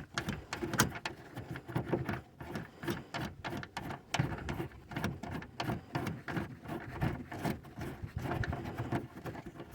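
Nuts being unscrewed off the long studs of a car's taillight housing, with repeated irregular clicks and small knocks.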